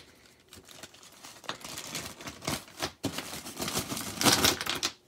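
Small parts being handled on a wooden workbench: irregular light clicks and clatter, with a louder rattling burst about four seconds in.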